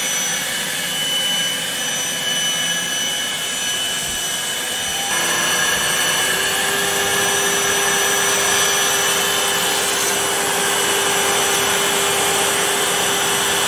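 Motors of a home-built CNC milling machine and its dust extraction running steadily. About five seconds in, another motor is switched on, spins up and settles into a steady hum, and the noise grows louder.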